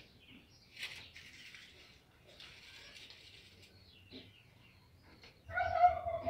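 Dry nesting straw rustling, with soft clicks of eggs being picked from a wicker basket and set into the straw nest. Near the end a short pitched bird call, the loudest sound.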